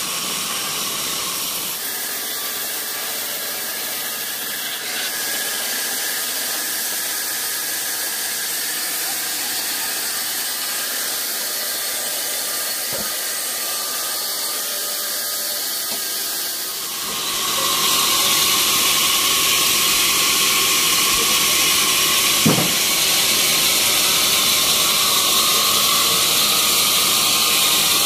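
Band sawmill sawing a teak log: a steady hissing whine from the blade. It gets louder and brighter about two-thirds of the way through, with one short knock a few seconds after.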